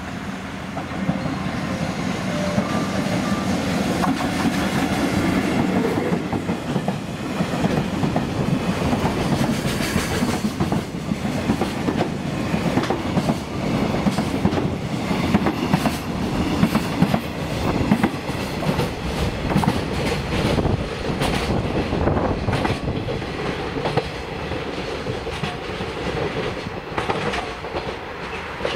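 JR Freight EF64 electric locomotive running past with a long train of container wagons. The locomotive's steady running noise comes first, then the passing wagons' wheels clack over the rail joints in a long, dense run.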